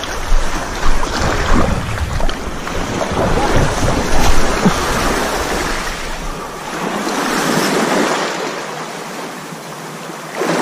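Sea waves washing, with wind buffeting the microphone, the noise swelling and easing; the low wind rumble fades out about two-thirds of the way through.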